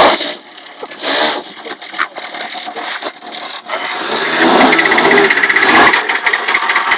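Small Yamaha motor scooter engine running, with scattered clicks and knocks. It grows louder about halfway through, with a fast, even ticking pulse.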